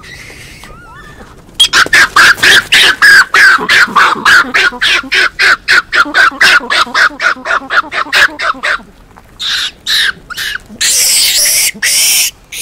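Japanese macaques screaming: a rapid run of loud, harsh shrieks, about five a second, lasting some seven seconds. A few shorter calls and two longer screams follow near the end.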